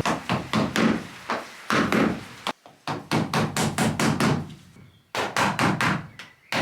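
Hammer blows struck in quick runs, about three to four a second, broken by short pauses about two and a half and five seconds in.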